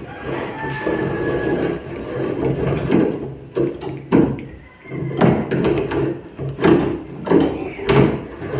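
Hand brace and bit boring through a door to widen the latch hole: a rough cutting and creaking noise that swells and eases in a steady rhythm, a little faster than once a second, with a short squeak near the start.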